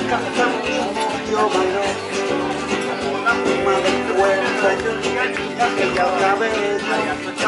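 Live Spanish-style band music in a flamenco-rumba style: several acoustic guitars strumming.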